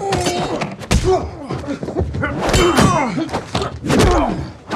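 Film fight sound effects: a quick series of blows and thuds, some with a ringing metal clang, mixed with men's grunts and cries of effort.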